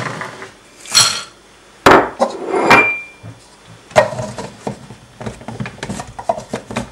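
Roasted coffee beans tipped from a plate into a small electric blade coffee grinder's steel cup while the grinder is handled on a wooden worktop, with the grinder's motor not yet running. There are two loud knocks about two seconds in, a sharp click near the middle, then light clicking and clatter as the lid is fitted.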